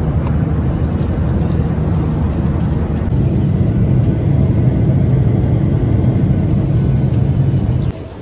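Steady low rumble of a jet airliner's cabin in cruise flight, the engine and airflow noise heard from a passenger seat, stopping suddenly near the end.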